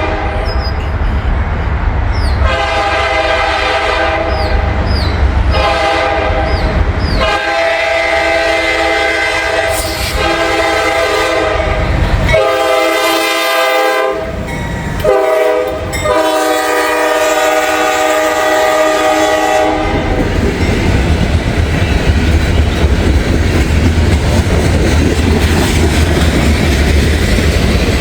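Diesel locomotive's multi-chime air horn sounding a series of long blasts, with one short blast about 15 seconds in, over the low rumble of the approaching train. The horn stops about 20 seconds in, and the rumble and clickety-clack of the freight train rolling past go on.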